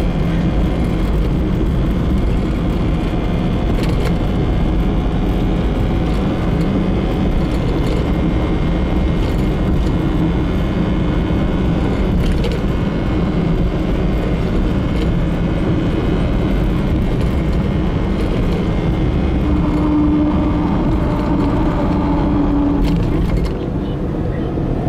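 Steady road and engine noise of a car driving, heard from inside the cabin, mostly a low rumble. The noise dips slightly near the end.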